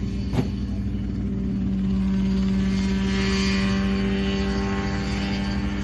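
Mosquito ultralight helicopter's engine and rotor running steadily, growing louder about two seconds in as it lifts off into a low hover. A single sharp click comes near the start.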